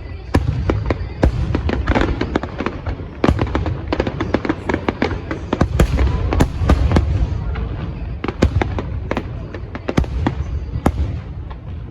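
Aerial fireworks bursting in a dense finale barrage: many sharp bangs in rapid, irregular succession over a continuous low rumble.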